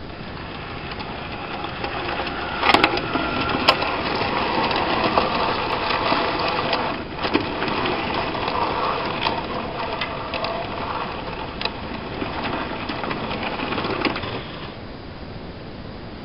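OO gauge model train, a Bachmann GWR Prairie tank locomotive hauling goods wagons, running along the track with a steady rattling rumble of motor and wheels on rail and scattered clicks. The sound builds over the first couple of seconds and has two sharp clicks about three seconds in. It falls away a little before the end.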